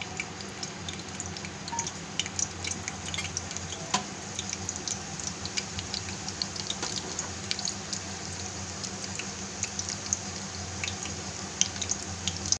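Mustard and cumin seeds frying in hot oil in a pressure cooker pan: a steady sizzle with many small scattered crackles as the seeds begin to splutter for the tempering (tadka).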